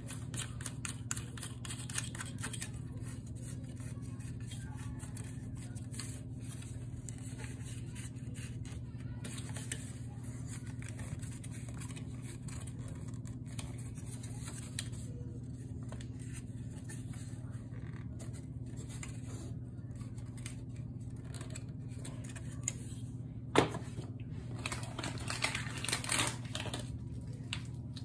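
Small plastic clicks and scrapes as a locking collar is threaded by hand onto a USB power socket seated in a plastic dash bezel, with one sharp click about three-quarters of the way through and a short run of scraping after it, over a steady low hum.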